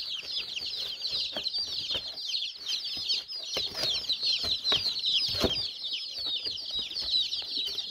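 A brood of about thirty baby chicks peeping nonstop, many short, high, downward cheeps overlapping into a constant chatter, with a few brief knocks mixed in.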